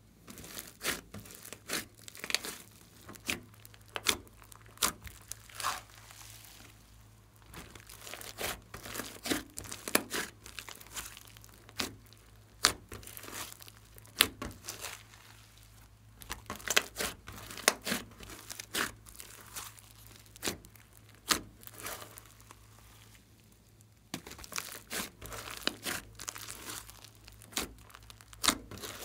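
Hands kneading and pressing a large mass of thick slime studded with small foam beads: irregular crackles, pops and squelches, often several a second, coming in clusters with short lulls.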